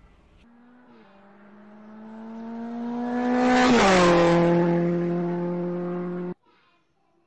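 A vehicle passing by: a steady engine tone swells to its loudest about four seconds in, drops sharply in pitch as it passes, then holds the lower note until it cuts off suddenly.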